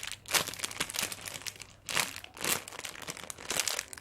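Crinkly, rustling handling noise from a foam squishy toy being held and squeezed close to the microphone, in irregular strokes.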